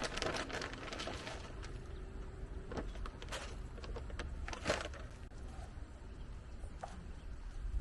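Handling noises of hands working in a planting pot: scattered rustles and light knocks, busiest in the first second, with one sharper knock a little before five seconds in, over a steady low rumble.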